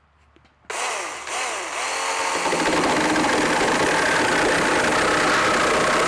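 Kimo 20V 9-inch battery chainsaw: its electric motor starts just under a second in with a rising whine as the chain spins up, then from about two and a half seconds in the chain cuts steadily into hard red oak.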